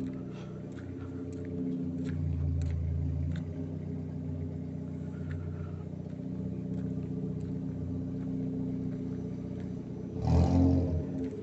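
Citroën C4 with an aftermarket sports exhaust idling, swelling a little a couple of seconds in, then a short sharp rev blip near the end, the loudest moment.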